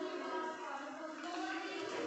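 Indistinct voices mixed with background music, no words clear.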